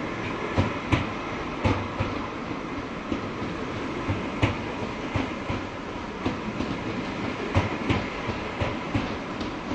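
Rovos Rail Pride of Africa passenger coaches rolling along the track, wheels clicking sharply and unevenly over the rail joints above a steady rumble.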